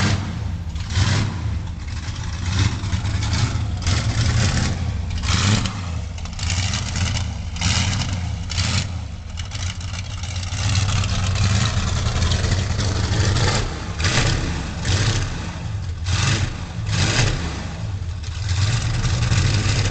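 Marmon Sixteen's aluminium-block, overhead-valve V16 engine running, a steady low throb broken by repeated short sharp rasps.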